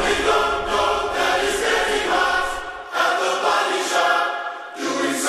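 Background music: a song opening with layered, choir-like voices singing.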